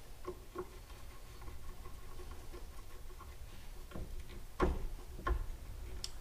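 Hand screwdriver turning small machine screws into a controller mounting plate. Light scattered clicks and scrapes of metal, with a few sharper knocks in the second half.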